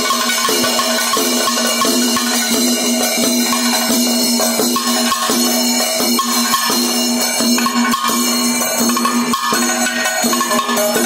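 Kerala keli percussion ensemble: chenda drums struck with sticks, a hand-played maddalam and clashing ilathalam cymbals together make a fast, steady rhythm.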